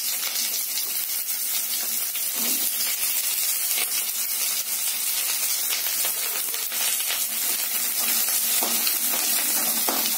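Chopped onions sizzling and crackling steadily in hot oil in a non-stick kadai, with a few scrapes of a spatula stirring them near the end.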